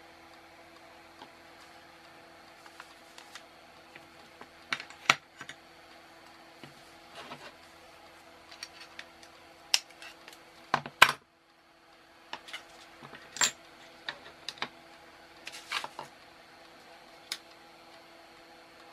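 Scattered sharp clicks and snaps of small-parts work on a circuit board: cutters snipping off excess component leads, and parts tapped and set down on the mat. A faint steady hum sits underneath.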